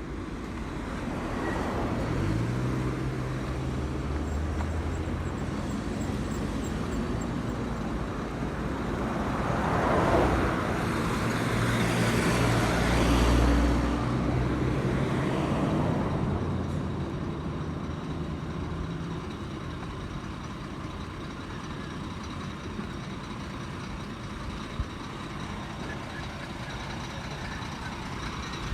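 Road traffic with heavy vehicles. An engine revs up about two seconds in, and a large vehicle passes close by between about nine and sixteen seconds in, loudest near the middle. A steady background traffic hum follows, with a single sharp click near the end.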